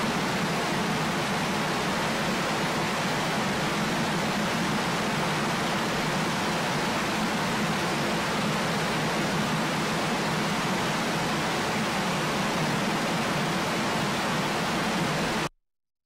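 Steady rushing of water, an even unbroken noise that cuts off abruptly about half a second before the end.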